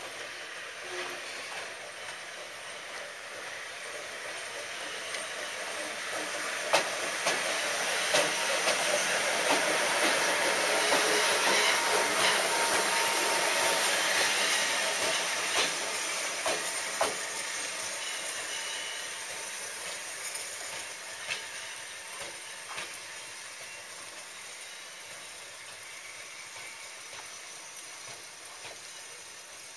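Pair of ED45 electric locomotives coupled together, passing by: their running noise builds to a peak about halfway through and then fades as they pull away. A series of sharp clicks during the pass comes from the wheels crossing rail joints and points. Steady hiss of rain underneath throughout.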